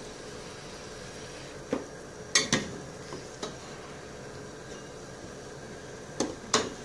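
A slotted spoon knocking against a pot of simmering water as parboiled chicken wings are lifted out: several sharp knocks over a steady hiss from the pot.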